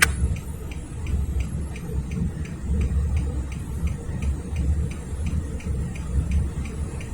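Low rumble of idling diesel locomotives on a stopped freight train, with a faint, even ticking about four times a second over it.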